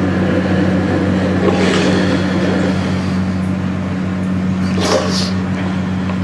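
Wooden spoon stirring custard in a metal skillet over a gas burner, with a couple of brief scraping sounds, over a steady low hum.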